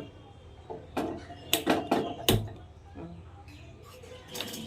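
A handful of sharp clicks and clanks at a gas stove, bunched together about a second or two in, as a pot of milk is set on the burner and the gas is turned on and lit.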